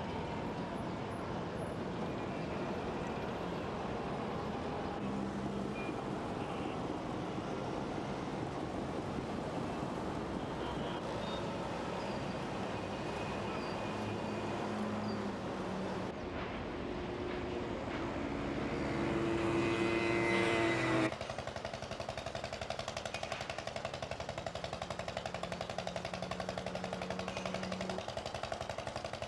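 Dense city road traffic: a steady roar of engines and tyres with passing vehicles. About two-thirds of the way through, one engine's note rises as it accelerates, then cuts off suddenly.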